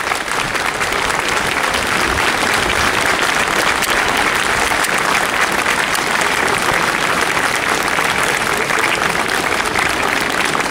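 A crowd applauding, a steady even clapping.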